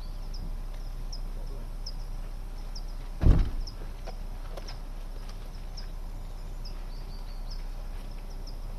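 Outdoor ambience with a short high chirp repeating roughly once a second, broken by a single dull thump about three seconds in.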